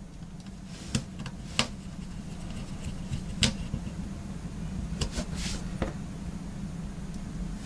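Small scattered clicks and taps, about six, as a metal shield plate and its tiny screws are fitted inside an iPhone 6s Plus with a small screwdriver, over a steady low hum.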